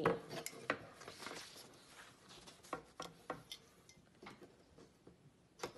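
Clipboard being handled as a sheet of paper is changed: paper sliding and rustling against the board, and the metal clip giving a series of light clicks and taps, the sharpest one near the end.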